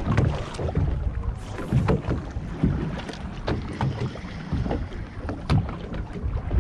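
Small waves slapping irregularly against a boat's hull over a low rumble, with wind buffeting the microphone.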